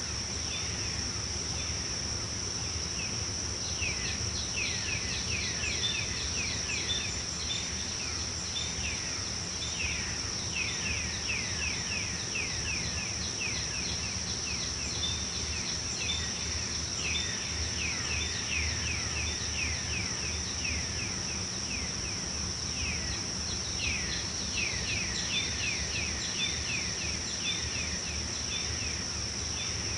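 Tropical forest ambience: insects keep up a steady high-pitched drone, while birds call in repeated runs of quick falling notes, over a low steady rumble.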